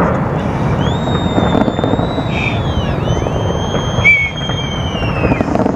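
A large fireworks display going off without pause: a dense wash of crackling and popping bursts, with two long high whistles that slide in pitch over it and a sharper bang about four seconds in.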